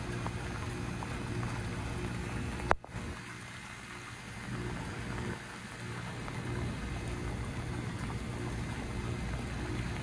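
Heat pump outdoor unit humming steadily, then a single sharp click nearly three seconds in, after which the low hum drops away as the unit changes over into its defrost cycle. Rain patters on the microphone throughout.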